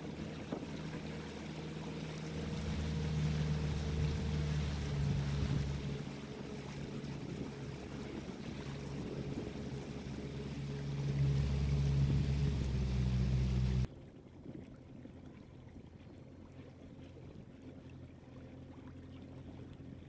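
Boat motor running steadily with a low hum, rising and easing a little, along with wind and water noise; about two-thirds of the way through it stops abruptly and only a much quieter background remains.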